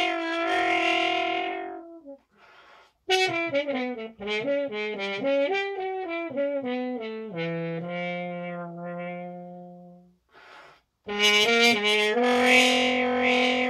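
Double French horn played with a stop mute in a solo blues piece: a held note ends about two seconds in, then after a short pause a run of quick notes steps downward to a long low note, and after another pause a loud held note starts near the end.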